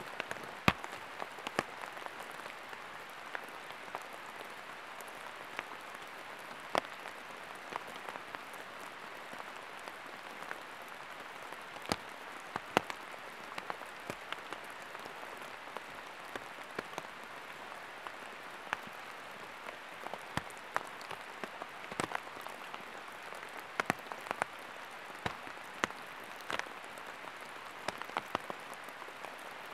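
Steady rain falling in a forest, with irregular sharp drops striking close by.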